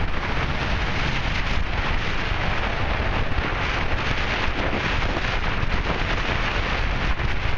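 Tropical-storm wind buffeting the microphone over heavy breaking surf: a steady, even hiss with a low rumble underneath.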